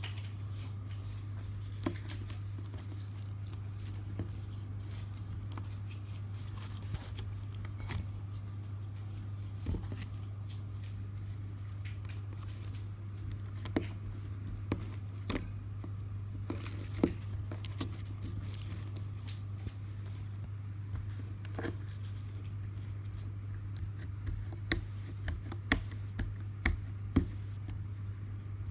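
Slime being squeezed and poked by hand, giving irregular sticky clicks and pops that come more often near the end, over a steady low hum.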